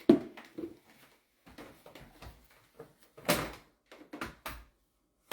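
A clamp mop's paper-towel head bumping and wiping against a surface: a sharp knock at the start, a swish about three seconds in and two short scrapes after it, with quiet gaps between.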